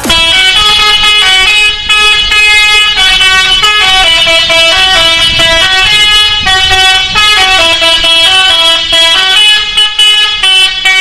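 Bus's musical 'telolet' horn playing a melody, its held notes changing pitch in steps every half second or so.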